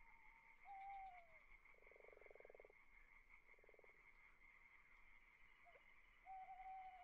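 Faint animal calls over a steady high hum: a short whistled call that slides down at its end about a second in and again near the end, and two quick rattling trills, the first about two seconds in and the second, shorter, about three and a half seconds in.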